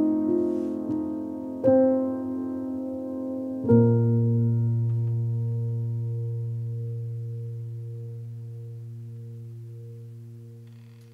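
Background piano music: a few struck chords, then a final low chord held and left to ring, fading away slowly toward the end.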